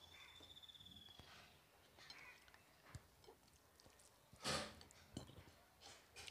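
Quiet eating sounds: rice mixed by hand on a glass plate and chewed, with small scattered clicks and wet mouth noises. A faint thin whistling tone sounds over the first second or so, and a short, louder noise comes about four and a half seconds in.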